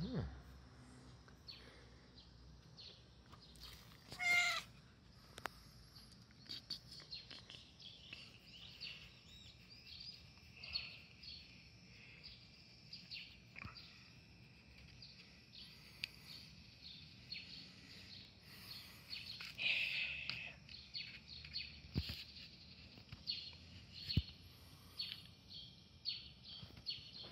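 Small birds chirping faintly, over and over, with one short, louder call about four seconds in.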